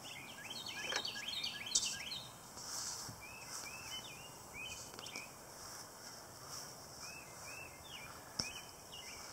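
Birds chirping: a long series of short, repeated chirps, densest in the first two seconds and sparser after. A single sharp click comes a little past eight seconds in.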